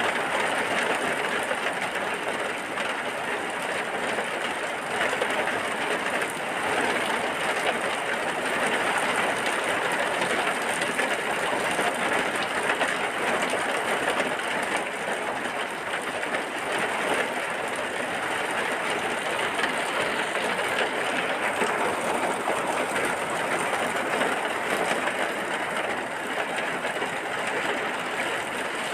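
Steady heavy rain, a dense, even hiss without letup.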